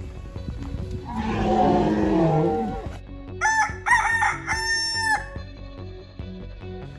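Rooster crowing once: a few short notes ending in one long held note, about three seconds in. Just before it comes a rough, two-second sound whose pitch falls, and background music plays throughout.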